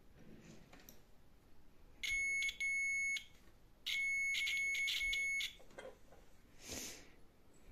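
Digital multimeter's continuity beeper sounding a steady high tone three times: two short beeps, then a longer one of about a second and a half. Each beep means the test probes are touching points that are electrically connected.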